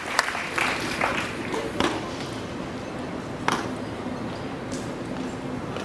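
Applause dying away into a few scattered claps over low crowd murmur, with a steady low hum underneath.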